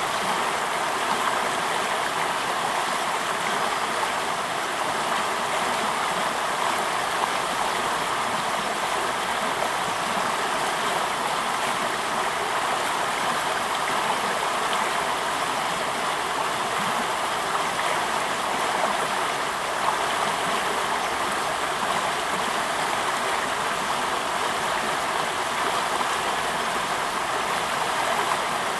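Shallow, fast-flowing river rushing over rocks: a steady, unbroken rush of water.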